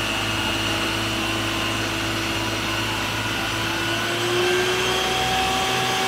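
Water tanker truck's pump and roof-mounted water cannon running, sending out a jet of water as a steady rushing, whirring noise. A faint tone in it rises slightly about four seconds in.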